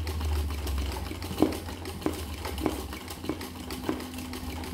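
Sewing machine running for free-motion embroidery, the needle stitching through a hooped towel: a steady low motor hum with a light click repeating evenly, a little under twice a second.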